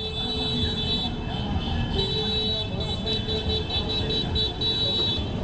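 A large group of small motorcycles riding past together, their engines running in a dense mix. A high-pitched tone sounds over them, breaking on and off repeatedly in the second half.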